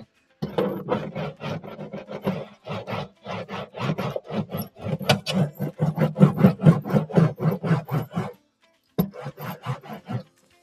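Metal hand roller worked quickly back and forth over butyl sound-deadening mat stuck inside a car's fender cavity, a rubbing, rasping stroke several times a second as it presses the mat's embossed diamond pattern flat. The strokes stop briefly a little after eight seconds, then start again.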